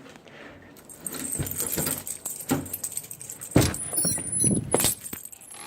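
Small metal pieces jingling and clinking, with two louder knocks about three and a half and five seconds in.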